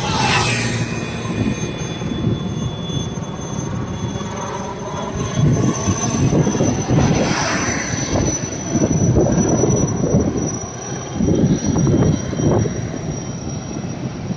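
Helicopter flying overhead, its engine and rotors giving a steady loud noise with a thin high whine, louder and more uneven from about five seconds in.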